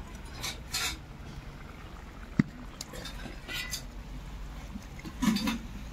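Spoon and cooking-pot sounds as a curry is finished and taken off the stove: short scrapes and stirring, with one sharp knock about halfway through.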